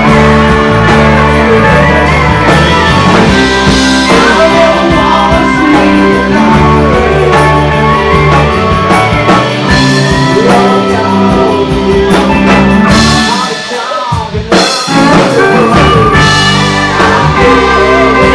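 Live rock band playing loudly, heard as a room recording: electric guitars, electric bass and drum kit with a lead singer. About three quarters of the way through the band briefly drops out, then comes back in full.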